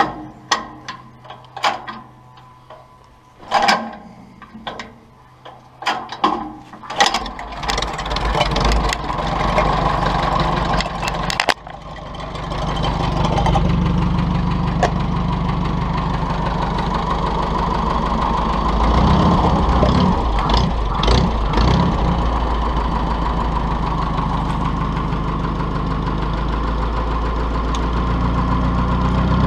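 1948 Farmall Cub's four-cylinder flathead engine being cold-started by hand crank after a winter's rest: a series of sharp clacks while it is cranked, then about seven seconds in it catches and runs raggedly, falters briefly, and settles into steady running.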